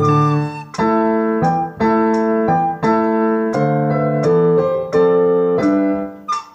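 Piano accompaniment playing a steady run of chords, each struck and ringing out before the next.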